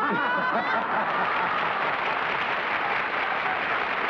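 Studio audience applauding steadily, with a few voices rising in a cry at the very start.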